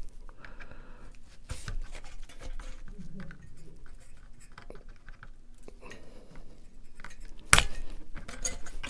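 Small clicks and scrapes of fingers and a tool working at a stubborn retaining clip on a graphics card's circuit board, with a sharper click near the end.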